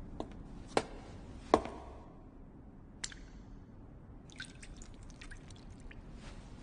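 Liquid dripping in single drops: three drops land under a second apart, the last and loudest about a second and a half in, then one more about three seconds in. From about four seconds there is a faint run of small crackling ticks.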